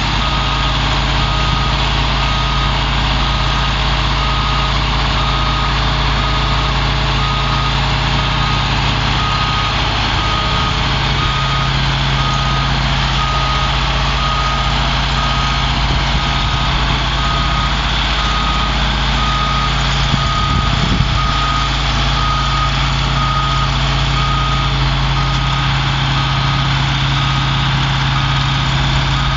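The 1992 International 4900 bucket truck's DT466 7.6 L diesel idling steadily, with an electronic warning alarm giving short, evenly spaced beeps over it.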